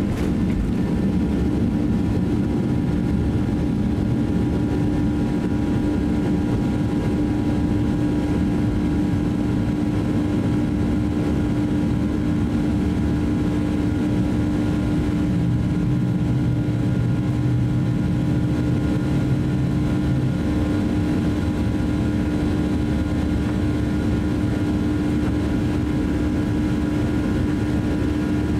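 Cabin noise of a Boeing 737-800's CFM56-7B turbofan engines at takeoff power, through the end of the takeoff roll and into the climb. It is a steady drone with a strong low hum and several steady higher tones, and a deeper hum joins for a few seconds past the middle.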